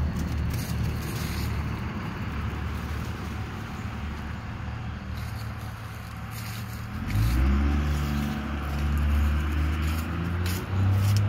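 A motor engine runs steadily, growing louder and fuller from about seven seconds in, with scattered crackles of dry fallen leaves.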